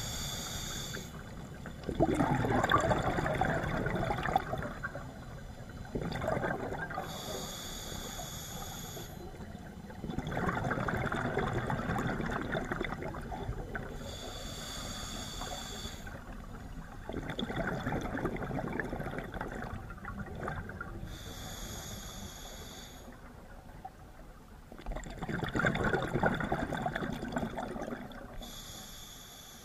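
A scuba diver breathing underwater through a regulator: a short hissing inhale, then a longer rush of exhaled bubbles, about once every seven seconds, four full breaths in all.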